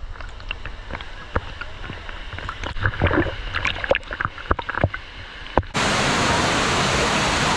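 A quieter stretch of scattered clicks and knocks, then the steady rush of a waterfall cuts in abruptly about three quarters of the way through.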